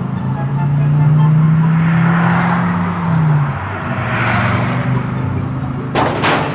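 A vehicle engine sound, like a truck's, runs as a steady low drone that swells and fades. About six seconds in there is a brief burst of clattering.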